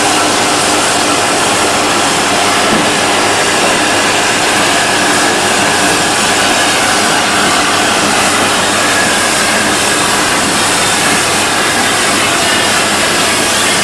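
Train running on a heritage railway line, a steady continuous rush with no distinct beats or breaks.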